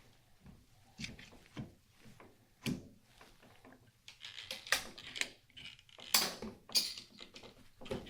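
Manual band tensioner being worked to tighten a steel strap band: irregular clicks and scraping metal strokes, growing louder and busier in the second half.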